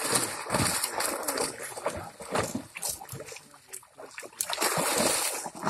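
Water splashing in irregular bursts as netted fish thrash at the surface in a tightened pond net, with men wading and handling the net in the water.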